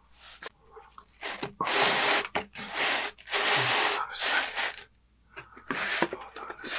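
Cardboard pizza box handled close to the microphone: several rustling, scraping bursts as the lid and flaps are pressed open and the box is shifted.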